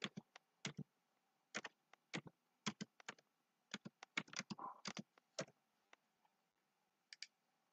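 Computer keyboard keystrokes, faint and at uneven spacing, typing a date, with a pause before a last keystroke or two near the end.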